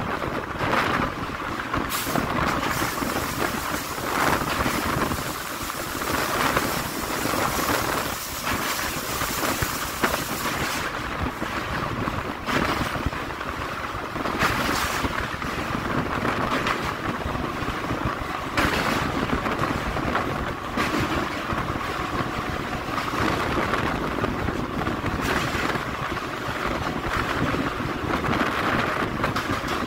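Train running across a steel truss railway bridge: a steady rumble of wheels on the rails with wind rushing past the microphone. A louder, hissier stretch runs from about two seconds in to about eleven, with a few short flares of hiss after it.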